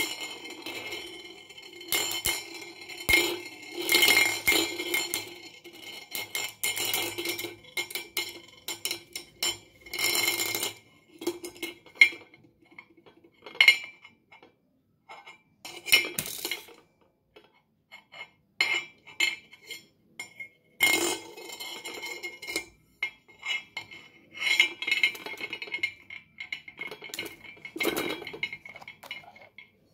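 Metal Beyblade spinning tops, a Pegasus among them, spinning and clashing on a steel plate. Bursts of metallic clinking and scraping come with the plate ringing, separated by short quiet gaps.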